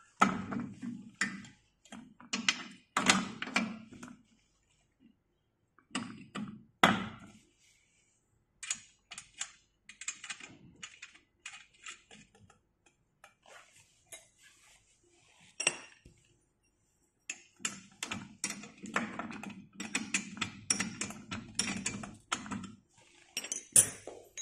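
Metal clicks, clinks and rattles of bolts, washers and steel frame parts of an elliptical trainer being handled and screwed together, in irregular bursts with short pauses.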